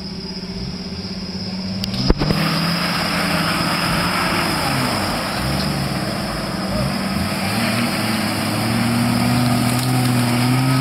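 Lifted Jeep Wrangler's engine revving up and down under load as its mud tyres churn through deep mud and water, with a single sharp crack about two seconds in.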